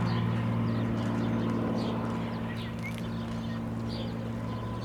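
Piper PA-46-310P Malibu's turbocharged six-cylinder piston engine and propeller giving a steady drone that slowly fades, with short bird chirps over it.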